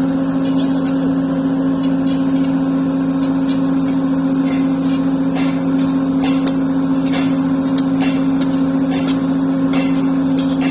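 Heavy machine's diesel engine running steadily at an even pitch, with scattered light clicks or knocks in the second half.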